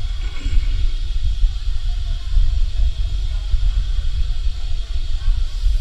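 A steady low rumble, with faint wavering tones above it.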